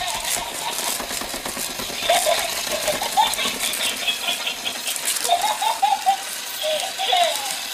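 A battery-powered light-up toy ball running and rattling as a pack of French bulldog puppies paws and pushes at it. Several short high-pitched puppy whines come through it.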